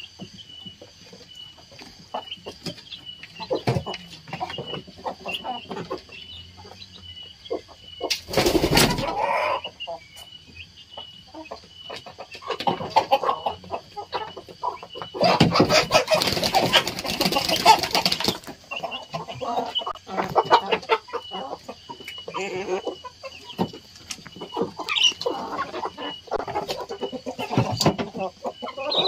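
A flock of domestic chickens clucking while they feed, with many small taps from pecking at the feed. There are two louder, noisy outbursts from the flock: a short one about eight seconds in and a longer one of about three seconds starting around fifteen seconds in.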